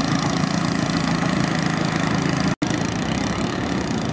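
Boat engine running steadily on the river, with a brief dropout about two and a half seconds in.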